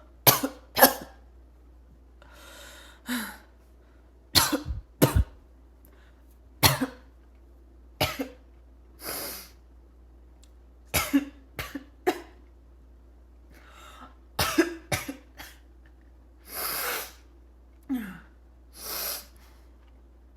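A person coughing: barking coughs that come in short bouts of one to three, with longer breaths drawn in between some of the bouts.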